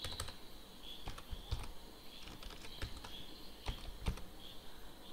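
Computer keyboard typing: a run of irregular, unevenly spaced key clicks as code is typed.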